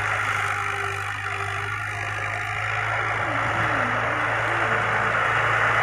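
Farm tractor's diesel engine running steadily under load as it pulls a disc harrow through dry soil.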